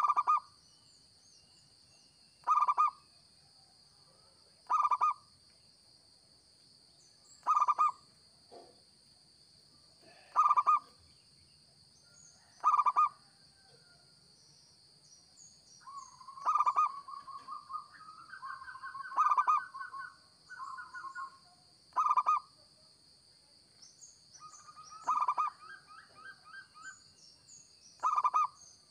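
Zebra dove cooing: a short, loud call repeats about every two and a half seconds, and from about halfway through rapid rolling trills run between the calls. Faint high chirps from other small birds and a steady high-pitched hum sit underneath.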